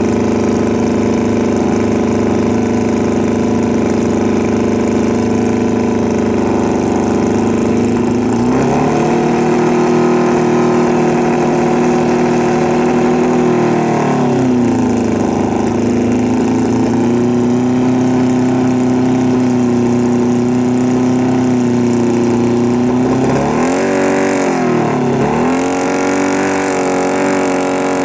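Drag-racing motorcycle engines running at the line: the engine note steps up about eight seconds in and holds steady, falls back briefly, then is raised and held again, with a quick dip and rise of the revs near the end.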